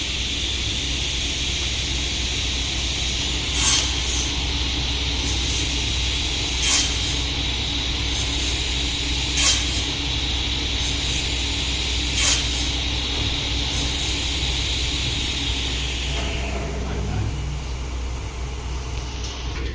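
Woodworking saw running steadily with a hiss, with four sharp knocks about three seconds apart. It is switched off about sixteen seconds in and winds down to a stop.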